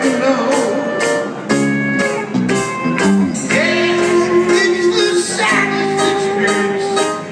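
Live rock band playing through a PA: drums keeping a steady beat under electric guitar, with a lead vocal.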